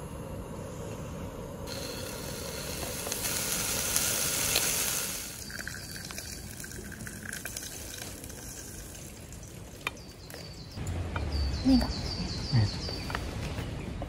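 Slices of pork tongue sizzling as they are laid into a hot pan on a portable gas stove: the hiss starts suddenly, swells for a few seconds, then drops back to a quieter sizzle.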